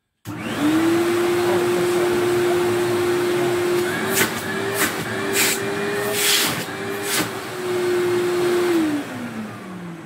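Vintage Hoover cylinder vacuum cleaner switched on: the motor runs up to speed within a moment and holds a steady whine. It is switched off near the end and winds down with a falling pitch. A few knocks sound midway while the machine is being handled.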